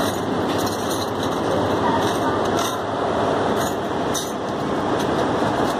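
Steady background noise with several light metallic clinks, as of small machine parts knocking together while being handled.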